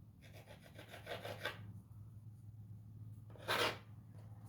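Knife cutting rolled halfcake (ngumu) dough on a board: a run of light, repeated scraping strokes in the first second and a half, then one louder scrape about three and a half seconds in.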